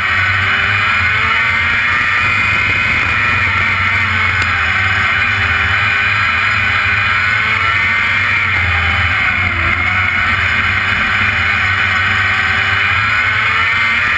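Sprint car engine heard onboard at racing speed, its pitch rising and falling with the throttle through the turns, with a sharper dip and pickup about two-thirds of the way through, over a constant rush of noise.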